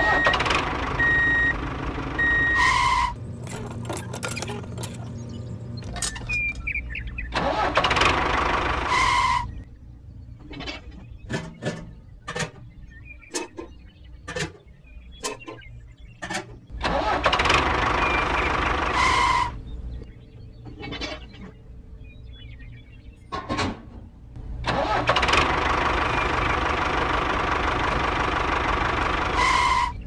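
Engine noise in five bursts of two to five seconds, each cutting off abruptly. Between the bursts come small clicks and knocks from toy parts being handled.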